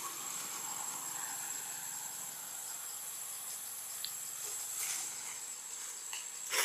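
Steady high-pitched insect drone, with a brief rustle about five seconds in.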